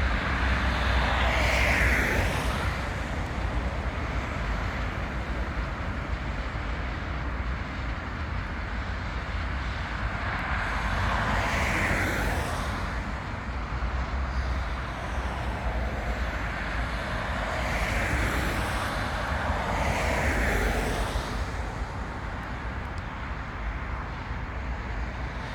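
Steady low rumble of an HŽ class 2041 diesel shunting locomotive running, with rushing noise that swells and fades four times.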